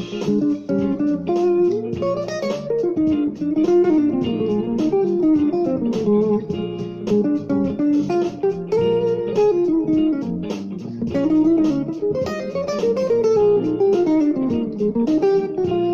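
Electric guitar improvising a single-note solo line in a funk-blues style, with rhythmic phrasing and quick notes climbing and falling in pitch.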